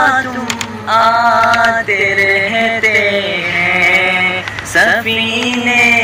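A solo voice sings long, wavering held notes in a slow devotional Urdu song, a nasheed.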